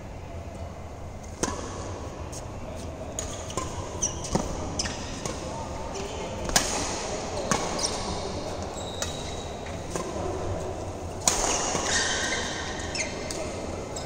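Badminton rackets hitting a shuttlecock in a doubles rally: a string of sharp hits a second or two apart, the loudest about six and a half seconds in. Between the hits there are short high squeaks from players' shoes on the court mat, and every hit echoes around the large hall.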